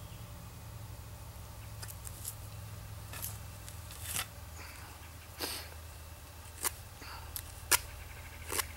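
Tools being handled, then a knife cutting a small wooden wedge down to size: scattered short, crisp clicks and scrapes, about one a second.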